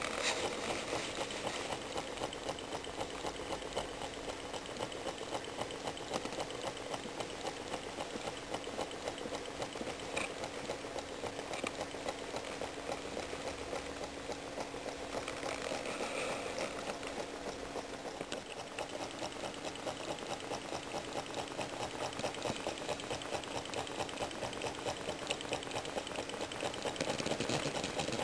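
Small homemade Stirling engine running steadily, its crank and wire linkages ticking in a rapid, even rhythm over a steady low hum.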